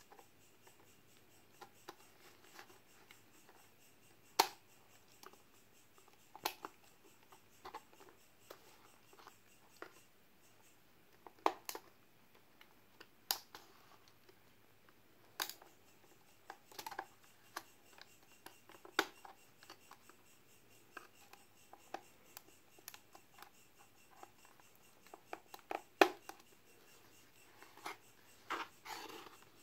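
Irregular sharp plastic clicks and snaps as a flathead screwdriver pries along the edge of an HP 1000 laptop keyboard, working it loose from its retaining clips while fingers press on the keys. A few of the snaps are much louder than the rest.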